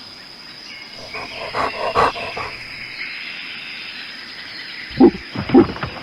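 Animal calls: a run of short, rough calls about a second in, then two loud short calls near the end.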